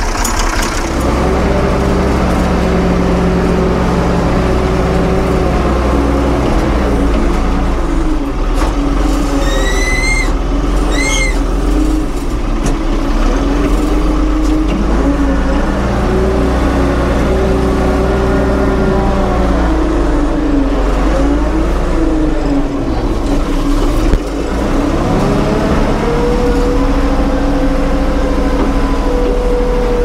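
1975 Ford 550 backhoe's diesel engine running hard, its pitch dipping and rising several times as the loader works to lift a heavy load. Two short rising squeaks come about ten seconds in, and a single sharp clunk later on.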